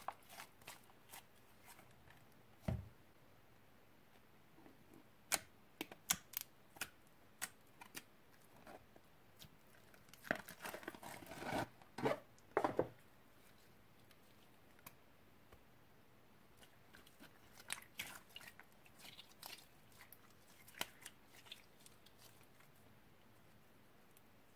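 Slime being mixed and worked by hand: scattered sharp sticky clicks, with a denser run of crackling about ten to thirteen seconds in.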